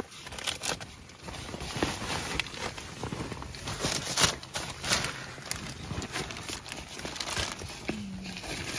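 Irregular rustling and crinkling with light clicks and knocks, as of someone moving about and handling things.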